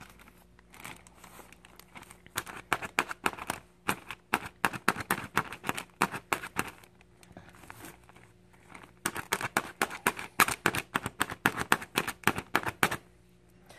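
A toothpick is jabbed again and again through a plastic zip-top bag to punch small vent holes, giving quick, sharp crinkling clicks. They come in two runs, from about two to seven seconds in and again from about nine to thirteen seconds.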